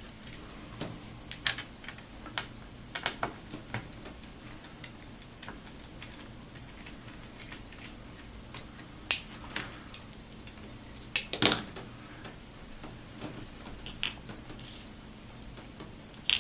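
Scattered small clicks and taps of a screwdriver working the screws out of a Dell XPS 15z laptop's cooling fan, with a couple of louder clacks about nine and eleven seconds in. A faint steady hum runs underneath.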